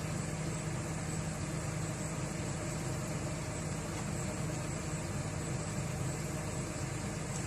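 Excavator's diesel engine idling steadily while it warms up before work, a constant low hum with no change in speed.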